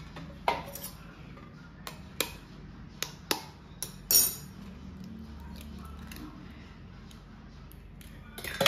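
A raw egg being cracked with taps against steel: a run of sharp clicks over the first four seconds as the shell gives. A louder clink of metal follows near the end.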